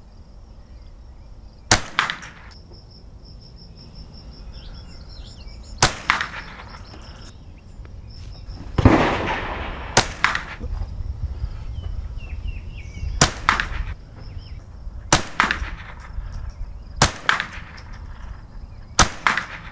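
Marlin Model 60 semi-automatic .22 LR rifle firing CCI Mini Mag high-velocity rounds slowly, one shot at a time: about seven sharp shots at intervals of two to four seconds. A louder, longer report comes about nine seconds in.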